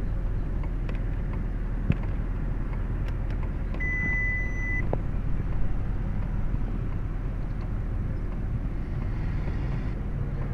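Steady low hum inside a 2007 Honda Pilot's cabin, with faint clicks of radio buttons being pressed and a single electronic beep about a second long near the middle, as the radio's reset code is keyed in after a blown fuse.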